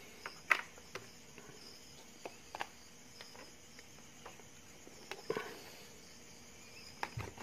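Crickets chirping faintly in the background, with a few light clicks and rustles from hands handling a full-face helmet's padded interior lining.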